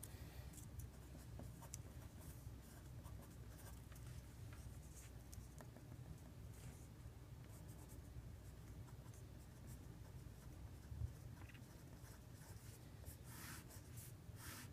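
Faint scratching of a pen writing, in short strokes that come and go, over a low steady hum.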